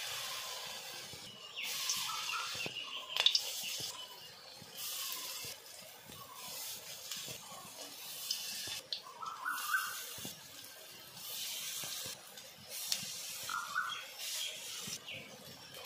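Khesari dal fritter batter sizzling in hot oil in a kadai. The hiss swells each time another lump of batter is dropped in, about every two seconds.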